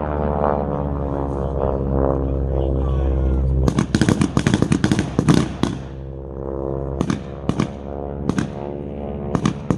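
Blank gunfire from a WWII battle re-enactment: a quick run of a dozen or so shots about four seconds in, then single shots spaced a second or so apart, over a steady engine drone.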